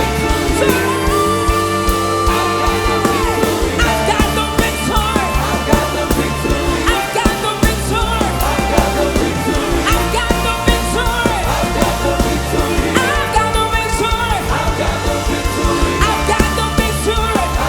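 Loud live music with a steady beat and singing voices.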